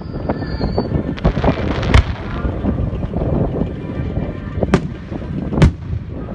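Fireworks going off close by: sharp bangs about two seconds in and twice near the end, with crackling in between.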